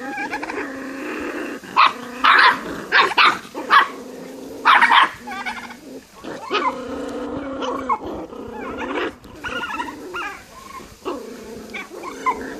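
A litter of puppies growling and whining over a carcass as they feed, a continuous pitched growl broken by several sharp yips, most of them between about two and five seconds in.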